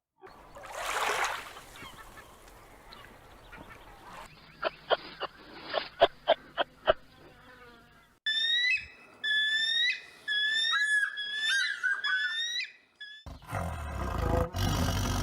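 A string of animal sounds: a breathy hiss, a run of sharp clicks, several seconds of high chirping calls that slide up and down, then a low, rough roar near the end.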